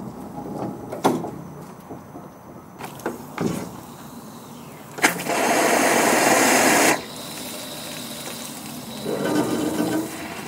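Steam traction engine venting steam low on the boiler beside the footplate. After a couple of faint knocks, a sudden loud rush of steam and water starts about halfway through, holds for about two seconds and cuts off sharply. A weaker rush follows near the end.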